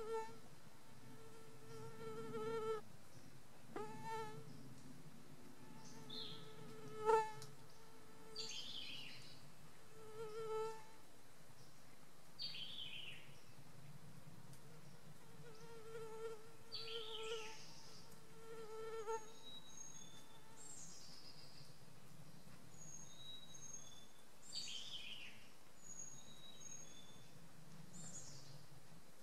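A flying insect buzzing close by, its hum coming and going in spells through the first two-thirds. Songbirds sing short falling whistled phrases every few seconds, with brief high single notes near the end.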